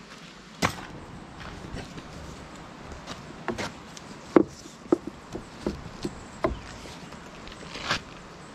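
A canoe on a car's roof rack being handled: about a dozen irregular hollow knocks and clunks, bunched in the middle and loudest a little after the middle.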